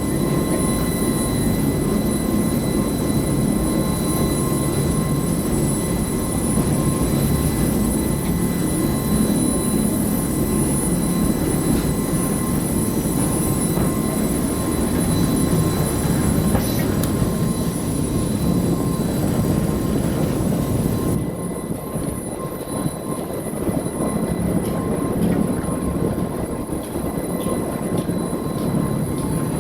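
A steady low mechanical rumble, with thin steady high-pitched tones above it; the high part drops away about two-thirds of the way through.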